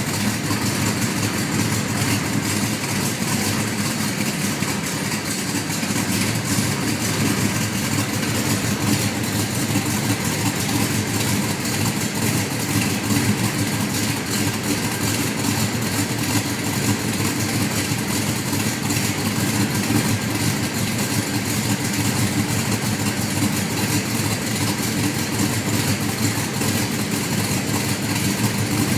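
1972 Dodge Dart Demon's 360 cubic-inch V8 idling steadily.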